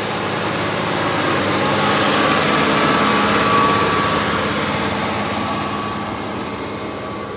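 New Holland T8 tractor's six-cylinder diesel engine running under load as it pulls a ripper bedder through dry soil. It passes close by, growing louder to a peak about three seconds in and then fading as it moves away.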